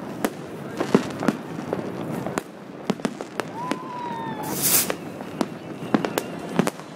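New Year's Eve fireworks and firecrackers banging irregularly, many sharp reports in quick, uneven succession. A short whistle, falling slightly, sounds about three and a half seconds in, and a loud hiss about four and a half seconds in.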